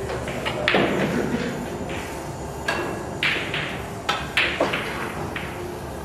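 Pool shot: the cue tip strikes the cue ball, followed by several sharp clacks of billiard balls hitting each other and the cushions, spread over a few seconds.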